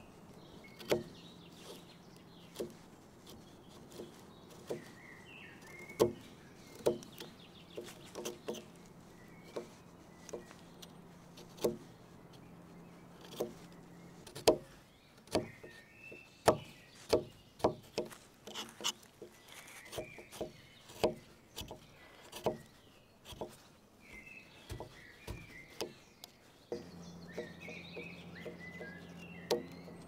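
Small blade of a Victorinox Huntsman pocket knife cutting slivers out of the gaps between the tines of a carved wooden fork: a run of sharp, irregular clicks about a second apart, coming faster in the second half. Birds chirp faintly in the background.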